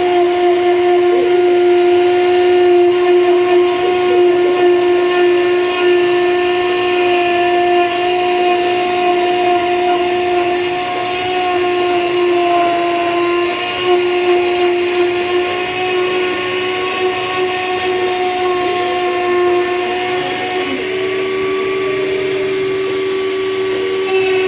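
CNC router's newly fitted motor running with a steady whine. Its pitch dips slightly about halfway through and shifts again near the end.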